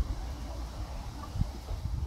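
Low, irregular rumbling and bumps on the microphone of a handheld camera outdoors, over a faint steady hiss.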